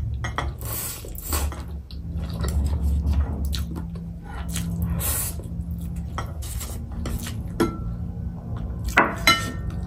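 Close-up eating sounds: Chapagetti noodles slurped and chewed, with metal chopsticks clicking against the dishes. Two sharp clinks near the end.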